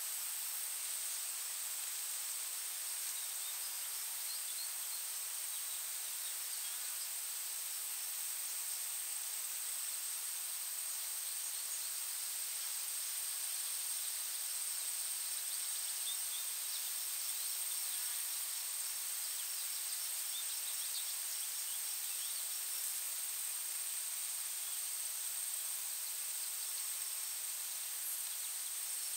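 Forest ambience: a continuous high-pitched insect drone, crickets or similar, over a soft steady hiss, with faint scattered bird chirps now and then.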